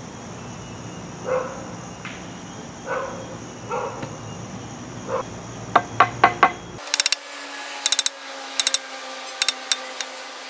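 Butt of a brick trowel's wooden handle tapping a brick down into its mortar bed to bring it level with a straightedge. The sharp taps begin a little over halfway through and come in quick groups of several.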